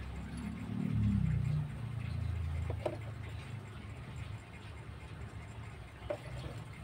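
Kittens purring, a low steady rumble that swells about a second in and then settles. Two faint short ticks come at about three and six seconds in.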